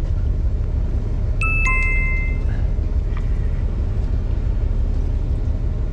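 Steady low rumble of a fishing boat at sea, with a short two-note falling chime about one and a half seconds in.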